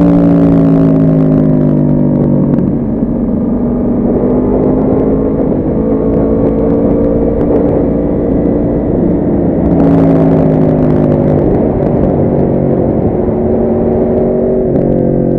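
Yamaha R1 inline-four motorcycle engine under way, its note climbing slowly in pitch as it accelerates and dropping sharply about two and a half seconds in, about ten seconds in and near the end, as it changes gear.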